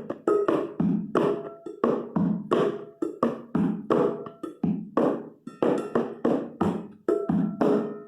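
Hand percussion played in an ijexá rhythm: a steady, syncopated run of sharp hits, about three a second, each dying away quickly.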